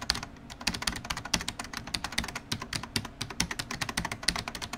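Computer keyboard typing: a quick, uneven run of key clicks.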